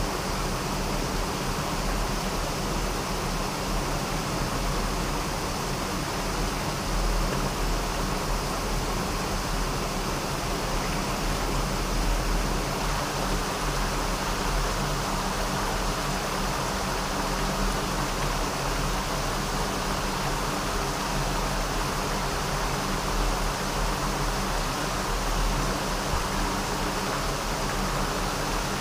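Steady rushing of water pouring through a canal gate structure, with a low hum underneath.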